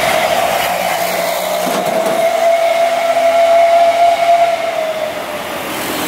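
Telolet melody air horn on a Jetbus-bodied coach holding one long note that swells slightly and fades out about five seconds in, with road traffic running underneath.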